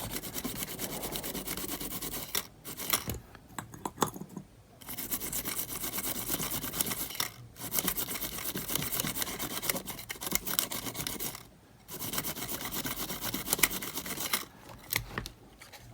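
Rapid back-and-forth scrubbing on small metal parts inside a cassette player, cleaning green copper corrosion (verdigris) off, in four spells with short pauses between them.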